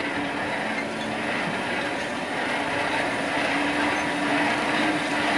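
Coal forge being blown by hand, its lever-worked air supply giving a steady rushing with a faint hum that rises slightly near the end.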